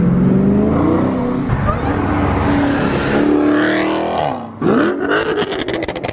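Muscle-car V8 engine accelerating, its pitch climbing steadily, dropping sharply about four seconds in and climbing again, with a rapid crackle over it near the end.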